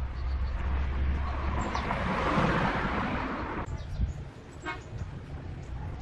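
A motor vehicle passing by, its noise swelling to a peak about halfway through and fading away, with birds chirping.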